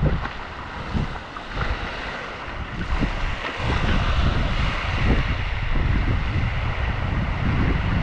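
Spray from a tall waterfall falling onto wet rock, a steady hiss, while gusts of wind and spray buffet the microphone in an uneven low rumble that grows heavier about halfway through.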